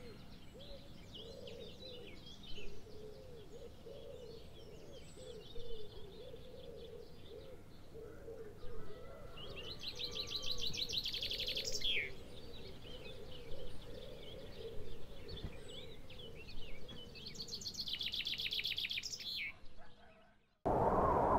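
Birdsong: high chirps and two quick rapid trills over low, repeated wavering calls. It fades out near the end, and a steady rushing noise starts just after.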